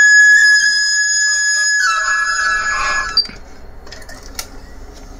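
Recorded music from a CD playing on a Pioneer Carrozzeria car CD player through its speakers: a melody with a held, flute-like tone. About three seconds in it cuts off with a click as the unit shuts off, leaving only a few faint clicks.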